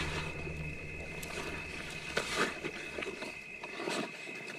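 Spotted hyenas feeding at a kill: low growls and short crunching, tearing sounds now and then, over a steady high-pitched insect trill.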